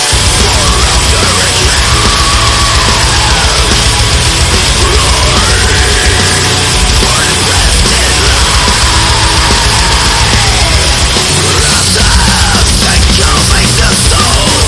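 Loud, dense instrumental music with a full low end and a lead melody that slides up and down in pitch.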